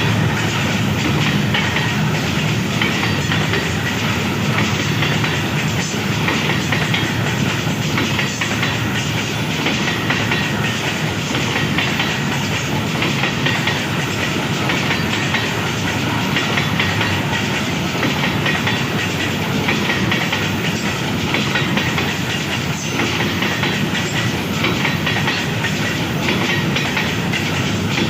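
Coal freight train running through at speed, its wagons' wheels clattering steadily over the rail joints in a fast clickety-clack with a continuous rush of rolling noise.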